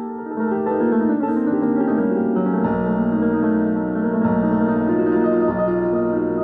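Theremin played live over layered electronic accompaniment from a laptop running Ableton Live, with several sustained notes sounding together. A deep bass layer comes in a little over two and a half seconds in.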